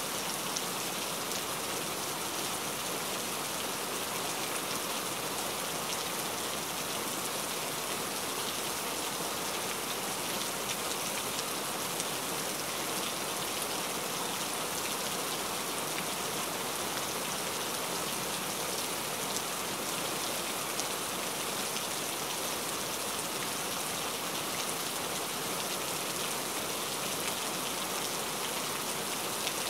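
Steady rain falling: an even hiss of many drops, with a few faint single drop ticks standing out.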